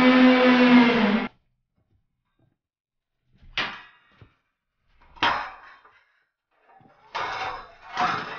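Background music cuts off abruptly about a second in. After a pause come two sharp metallic clanks with a brief ring, then from about seven seconds a run of clanking and clatter from large steel band saw blades being handled.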